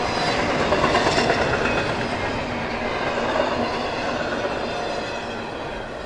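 Intermodal freight train passing, its cars and wheels running by on the rails, the sound falling away near the end as the last cars go past.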